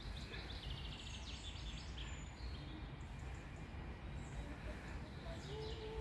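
Faint woodland songbirds: a rapid high trill about a second in, then a few short high chirps, over a steady low background rumble.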